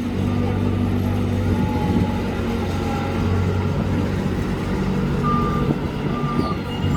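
Small street-vacuum cleaning vehicle running, its engine and suction making a steady hum. Short repeated warning beeps start about five seconds in, roughly one every 0.7 seconds.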